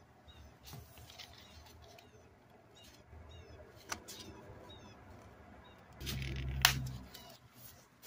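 Close handling noise: disposable plastic gloves rustling and crinkling as they turn a plastic toy figure and its cardboard hang tag, with scattered light clicks. About six seconds in there is a louder low rumble lasting about a second, with a sharp click near its end, as the figure is gripped against the microphone.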